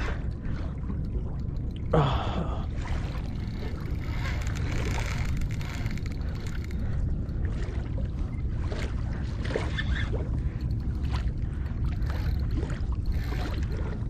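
Water lapping and gurgling against a fishing kayak's hull under a steady low wind rumble on the microphone, with a short gasping voice about two seconds in.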